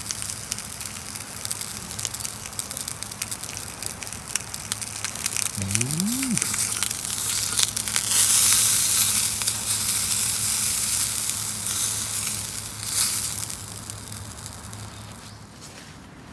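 Food sizzling and frying in a pan over a wood fire, with dense crackling. It swells loudest about halfway through and fades near the end.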